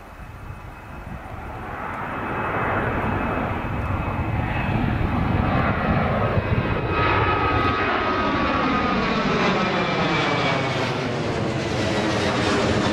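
Twin-engine jet airliner climbing out after takeoff: the jet engine noise builds over the first few seconds and then holds loud, with a sweeping, phasing sound as the plane passes overhead and a faint whine partway through.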